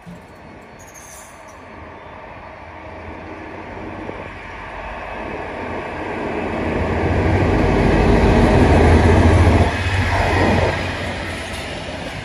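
Two diesel-hydraulic locomotives, a class 218 and a class 225, approach at the head of a freight train and pass close by. Their low engine rumble grows steadily louder, is loudest about eight to nine seconds in as the locomotives go past, then eases as the wagons roll by.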